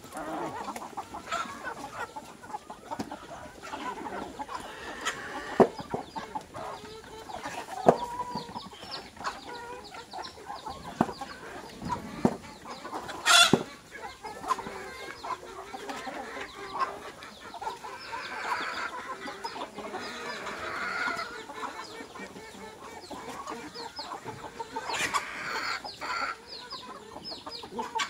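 A flock of chickens and roosters clucking and calling while crowding and feeding, with scattered sharp knocks and clatters throughout, the loudest a little before the middle.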